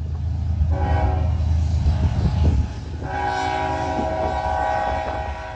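A freight locomotive's multi-chime air horn sounds two long blasts, the first about a second in and the second about three seconds in, over a low rumble.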